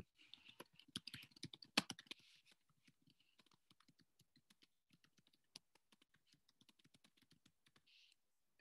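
Faint typing on a computer keyboard: a quick run of key clicks, a little louder in the first couple of seconds, then lighter keystrokes continuing.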